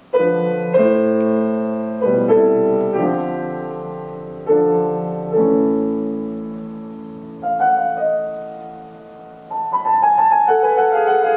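Grand piano playing slow chords, each struck and left to ring and fade before the next, with quicker notes near the end.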